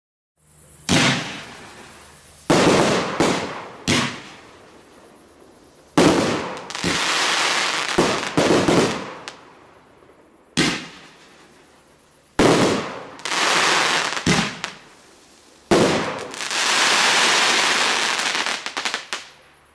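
Category F3 firework battery (Tropic TB12 Bloom Fireworks) firing: about a dozen sharp bangs of shells bursting, some in quick succession, each followed by a long rushing tail. Near the end a longer spell of rushing noise runs out in a few small cracks.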